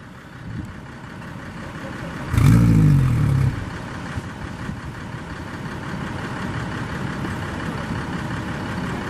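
Engine running over a steady background noise, with a loud pitched engine burst lasting about a second, roughly two and a half seconds in.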